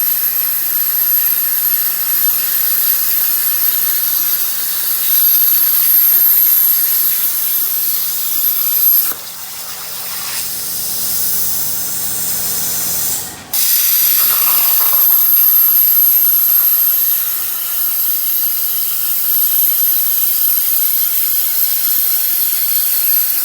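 CNC metal-cutting machine cutting iron sheet: a steady loud hiss with a thin high whine. It drops away about nine seconds in and comes back abruptly some four seconds later.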